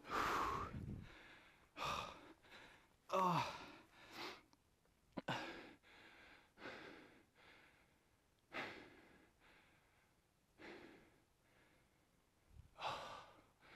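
A mountain-bike rider breathing hard just after a fall: loud exhales and sighs, a few with voice in them, every second or two, coming less often near the end.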